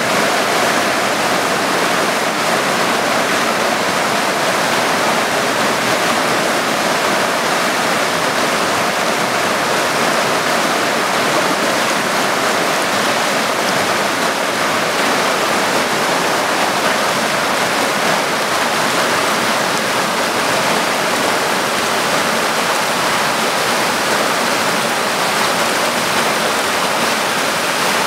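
Mountain river rushing through small rapids over rock ledges and boulders: a steady, loud rush of white water.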